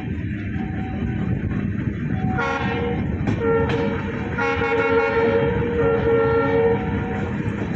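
Indian Railways train running along the track with a steady rumble, and from about two and a half seconds in a train horn sounds in a series of blasts, the later ones longer, stopping shortly before the end.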